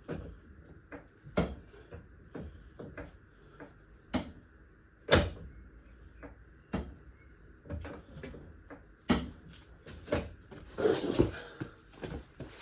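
Irregular knocks and clunks of tools and workshop equipment being handled and set down, with a short burst of rattling near the end.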